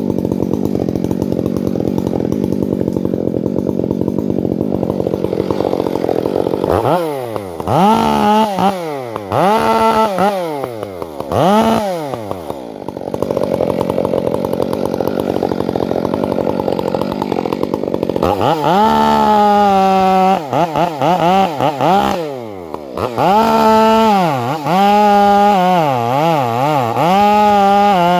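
Two-stroke chainsaw idling steadily, then revved up and down in several quick blips about seven seconds in before dropping back to idle. From about eighteen seconds it is held at high revs, its pitch dipping and recovering repeatedly.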